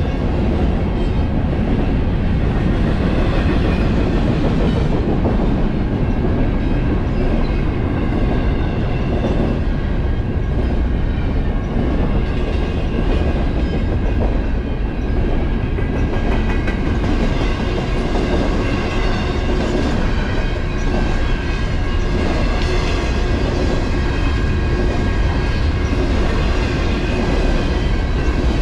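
BNSF manifest freight train rolling past at close range: a steady, loud rumble with wheels clacking over the rails. A thin steady whine rides on top, stronger past the middle.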